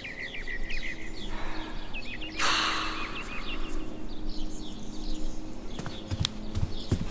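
Birds chirping in quick short calls, with a brief hiss about two and a half seconds in, then a few soft footsteps near the end.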